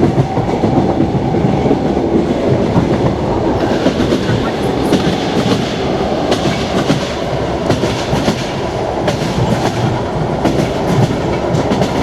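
Passenger train car running at speed, heard from inside the car: a steady rumble with the clickety-clack of the wheels knocking over rail joints in groups.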